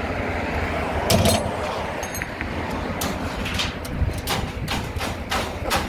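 Metal hooks and ratchet buckles of cargo tie-down straps clanking and clicking several times as the straps are handled at a car-hauler trailer's strap box, the loudest knock about a second in, over a steady low rumble.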